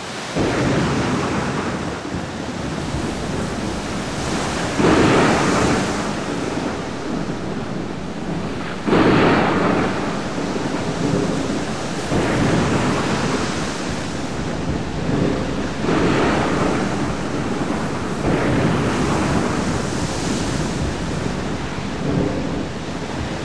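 Storm at sea: steady rain and wind with waves and rolling thunder, swelling in loud surges every few seconds. The two strongest surges start suddenly about five and nine seconds in.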